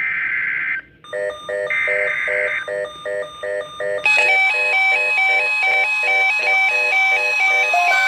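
NOAA Weather Radio alert coming in: a short warbling digital data burst of the SAME alert header. From about a second in, a weather alert radio's electronic alarm sounds repeating beeps several times a second, which turn into a louder, denser multi-note alarm pattern about four seconds in. It signals a tornado watch being issued.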